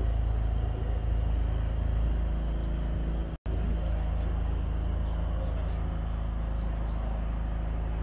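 Wind buffeting the phone's microphone over the steady running rumble of a heritage double-decker tram moving along its track. The sound drops out completely for a split second a little over three seconds in.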